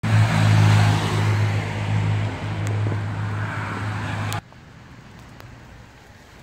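Truck's diesel engine running steadily close by, with a strong hiss over it. It cuts off abruptly about four seconds in, leaving a much quieter roadside background of rain and distant traffic.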